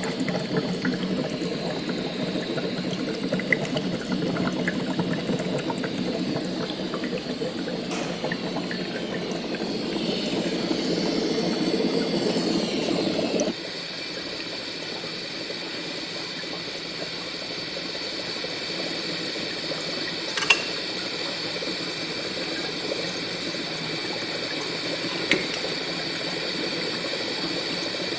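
Sci-fi laboratory ambience sound effect: bubbling, liquid-like churning over a steady high electronic tone. About halfway through it cuts abruptly to a quieter hum with several steady high tones and a few sharp clicks.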